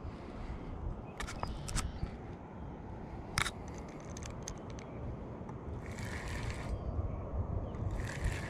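Fishing reel and rod being worked while a hooked largemouth bass is played toward a small boat: scattered sharp clicks and scrapes, the strongest about three and a half seconds in, over a steady low wind rumble on the microphone. Two short hissing bursts come in the second half.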